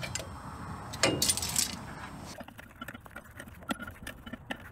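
Metal tools and brake hardware clinking together about a second in. After that comes a ratchet wrench clicking in quick, slightly uneven ticks, as it works the brake anchor-pin nut loose.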